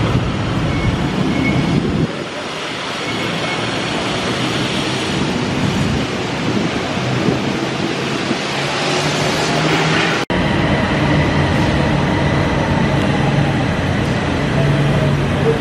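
Rail station noise in several short clips, with a sudden cut about ten seconds in. After the cut an elevated train stands at the platform with a steady low hum.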